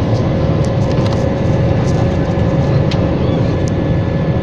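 Jet airliner cabin noise from a window seat over the wing: the underwing turbofan engine and rushing air give a steady low rumble with a constant hum tone.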